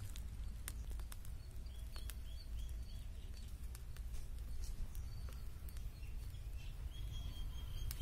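Small wood fire under the roasting cow legs crackling with scattered faint pops, over a steady low rumble. A bird calls a quick run of short chirps a couple of seconds in, and a thin high steady note starts near the end.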